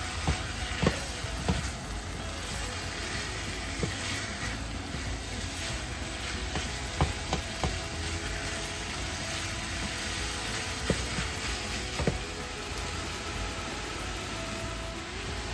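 Ground pork frying in a pan: a steady sizzle with a low hum underneath, broken by about nine sharp clicks of a utensil knocking against the pan as it is stirred.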